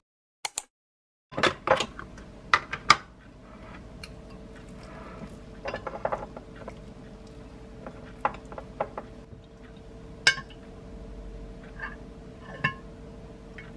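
Spoons clinking and scraping against glass bowls while Greek yogurt is scooped into a glass dessert cup and peach compote is ladled from a plastic jar, with sharp clinks coming irregularly. A faint steady hum runs underneath.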